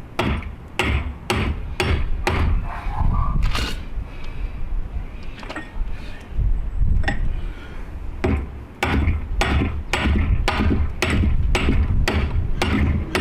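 Hammer blows on a steel front-suspension part of a 1961 Dodge Dart, knocking at it to drive it out: a few scattered strikes, a pause of about three seconds, then a steady run of about two to three blows a second.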